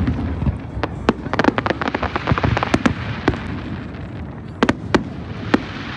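Fireworks going off, with a rapid cluster of sharp cracks and bangs in the first half and a few more single bangs near the end.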